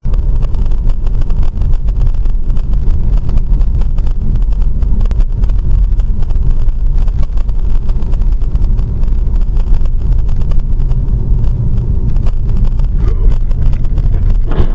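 Steady low rumble of a car driving at road speed, picked up by a dashcam inside the car: engine, tyre and road noise.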